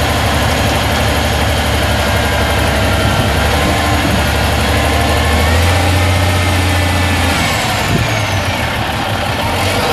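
International DT530 8.7-litre inline-six diesel engine of a dump truck idling steadily, its low hum swelling for a couple of seconds about midway and then settling back.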